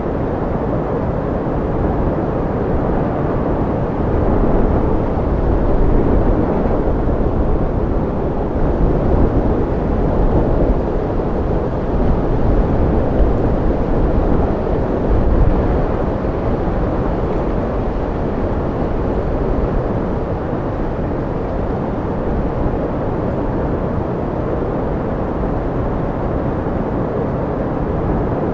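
Strong wind: a steady, deep rushing with no whistle, swelling in gusts for a stretch before settling back to a constant blow.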